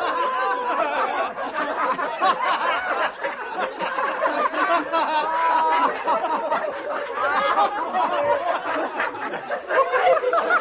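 Several people laughing together in overlapping giggles and chuckles, with no pause.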